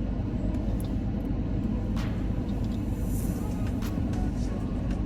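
Steady low rumble, like a vehicle cabin, with a few faint clicks.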